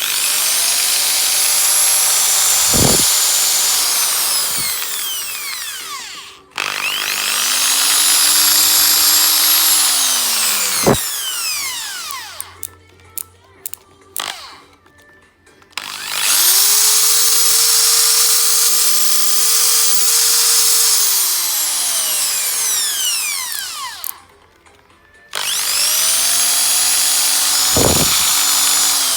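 Interskol D-10/350 electric drill switched on four times, each time running at full speed with a steady whine and then winding down with falling pitch when released. A few clicks come in the pause between the second and third runs.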